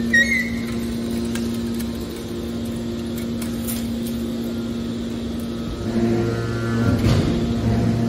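Hydraulic scrap metal baler's power unit running with a steady hum. A short click sounds right at the start, and about six seconds in a deeper, louder hum joins as the hydraulic load changes.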